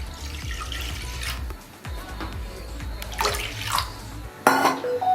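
Water being poured and splashing into a kadai (wok) on the stove, with a sharp clatter about four and a half seconds in. Background music plays underneath.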